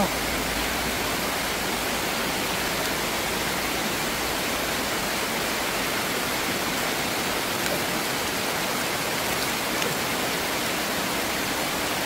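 Water pouring over a low concrete weir and rushing through the shallows around it: a steady, even rushing.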